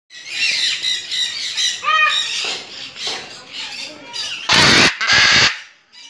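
Macaws squawking: a chorus of harsh, high calls, then two loud, long squawks one right after the other near the end.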